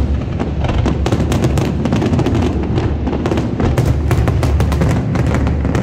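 Aerial fireworks bursting in a rapid barrage: many sharp cracks in quick succession over a continuous low rumble of booms.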